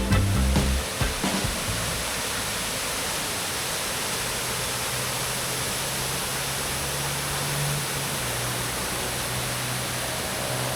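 Waterfall rushing steadily, a continuous even roar of falling water. A music track fades out in the first second.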